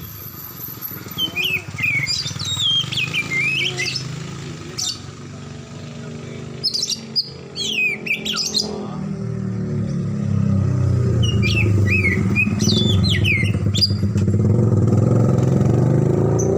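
Oriental magpie-robin (kacer) giving three bouts of quick, sliding chirps and whistles. A motorcycle engine drones underneath, growing louder through the second half until it is the loudest sound.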